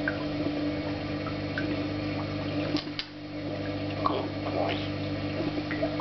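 African grey parrot making a few sharp clicks and short rising chirps, over a steady electrical hum.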